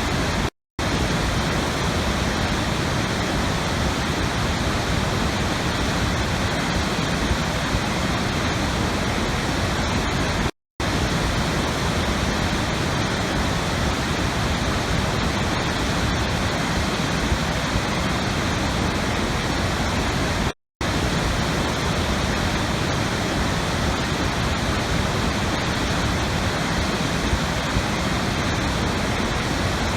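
Steady rushing water, an even hiss spread across low and high pitches. Three times, about ten seconds apart, it cuts to silence for a split second and starts again.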